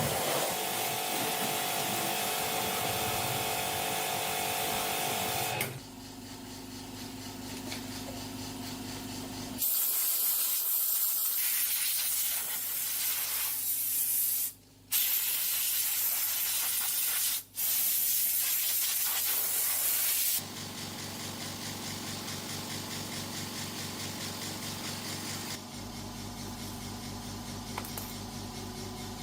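A loud, even spraying hiss that stops briefly twice, between stretches of steady mechanical humming and running.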